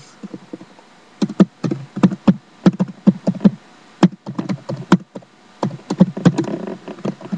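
Computer keyboard being typed on: short runs of key clicks with brief pauses between them.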